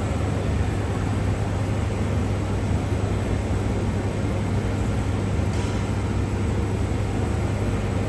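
Steady rumble and hiss of a jet airliner's engines running at an even power, with a deep hum underneath and no rise or fall in pitch; a faint click about five and a half seconds in.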